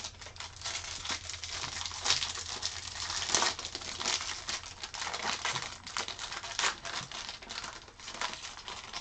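Foil wrapper of a trading-card pack crinkling and tearing as it is opened by hand: a dense, uneven run of crackles.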